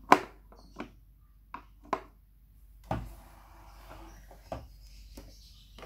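Hard plastic parts of a Fisher-Price Laugh & Learn toy kitchen clicking and knocking as they are handled, the trash-can lid and the fridge door among them. A sharp click comes first, the loudest, followed by about seven lighter, irregularly spaced clicks and taps.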